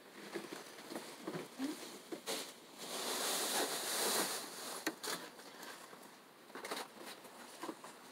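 A cotton receiving blanket rustling and brushing as a newborn is wrapped in a swaddle. The rustle is loudest for about a second and a half a few seconds in, with a few soft knocks.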